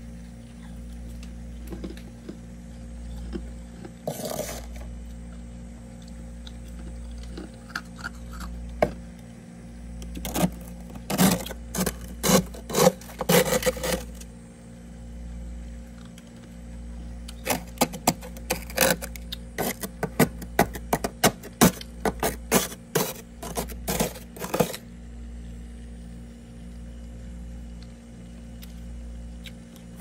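White plastic spatula scraping and crunching soft frost inside a freezer, in quick strokes: a short run about four seconds in, then dense runs from about ten to fourteen seconds and from about eighteen to twenty-five seconds. A steady low hum runs underneath.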